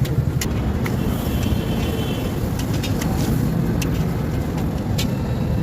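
Steady low rumbling background noise with scattered sharp clicks and clinks.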